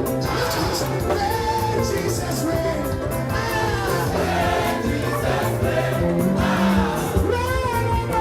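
Gospel praise music: a choir and congregation singing over a live band with a steady beat.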